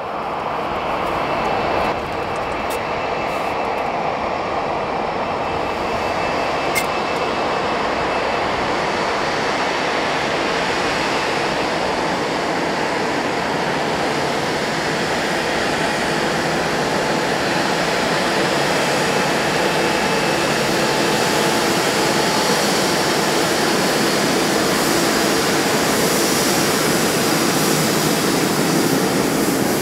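Boeing 787-8 Dreamliner's Rolls-Royce Trent 1000 turbofans running at low taxi power as the airliner rolls slowly past, a steady jet hiss and whine that grows slightly fuller and lower toward the end.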